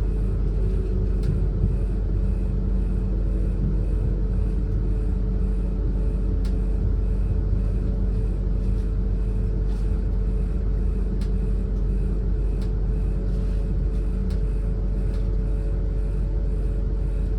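Class 444 Siemens Desiro electric multiple unit running at speed, heard inside the carriage: a steady low rumble from the wheels on the track, with a steady hum over it and occasional faint clicks.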